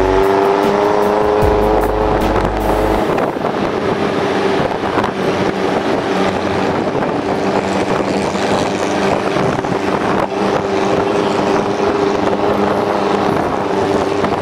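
Off-road jeep's engine running steadily under way, with heavy wind and road noise from the drive. The engine pitch climbs slightly about a second in, then holds.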